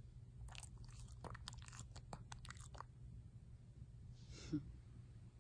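Faint wet clicks and smacks of a Shih Tzu's mouth as she licks her lips, then one short breathy puff about four and a half seconds in.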